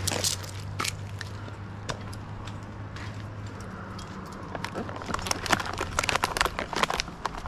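Leafy cottonwood branches and twigs rustling and crackling, the sharp snaps growing dense about four and a half seconds in, over a low steady hum.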